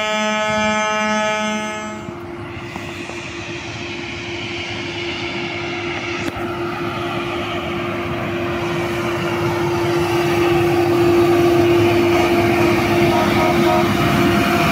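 A horn sounding steadily for about two seconds and stopping abruptly. Then a track maintenance machine, a Harsco 6700SJ tamper, rolling along the rails under its own power: engine and running noise with a steady hum, growing louder as it approaches.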